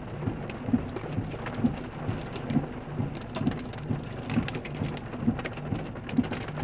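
Hail and heavy rain striking a car's roof and windows, heard from inside the cabin: a dense patter of sharp hits over a steady wash of rain. A low pulse repeats about once a second underneath.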